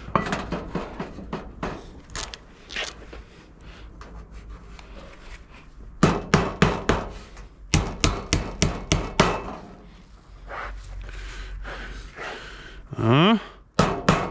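Hammer driving nails into a wooden fascia board: scattered taps at first, then a quick run of loud blows, about three or four a second, around the middle. A short rising squeal comes near the end.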